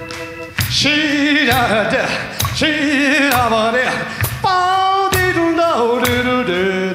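Man singing with a wide vibrato into a stage microphone, holding long notes, over organ accompaniment.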